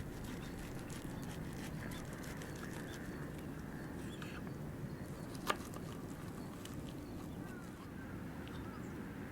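Campfire crackling faintly over a low steady rumble, with one sharp pop about five and a half seconds in.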